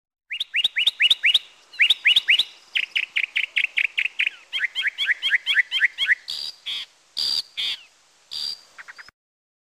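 Mockingbird singing: fast runs of repeated rising chirps, each phrase given several times over before switching to the next, then a few harsher, rasping notes near the end.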